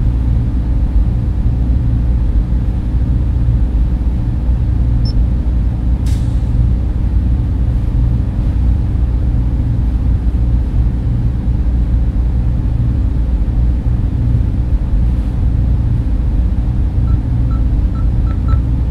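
Steady low drone of server machines and ventilation fans. A brief click comes about six seconds in, and a quick run of short electronic beeps near the end.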